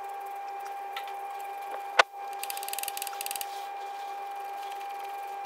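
Brake caliper slider bolts being threaded in by hand, with a single sharp metallic click about two seconds in and a brief run of fast ticking just after it, over a steady high hum.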